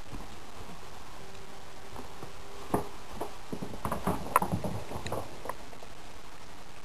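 A quick, irregular run of light knocks and taps on the floor as a cat dashes after a thrown toy, starting a few seconds in and lasting about three seconds, with the sharpest tap near the middle of the run.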